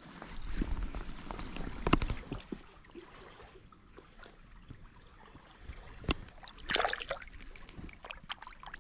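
River water with small splashes and sloshing, mixed with irregular knocks and rustles of handling, the sharpest knock about two seconds in and a short rushing splash near the end.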